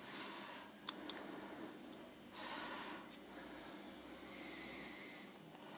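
Two small sharp clicks about a second in, then fainter ones, as ribbon-cable connectors are pried off the circuit board of a BlackBerry Z10. Quiet breathing and handling noise in between.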